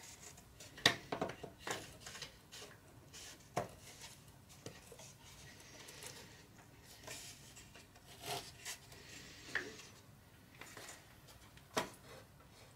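Light plywood parts clicking, tapping and rubbing together as a flat plywood panel is worked by hand into the slots of a wooden frame. Scattered irregular knocks, the sharpest about a second in and near the end, with soft scraping between them.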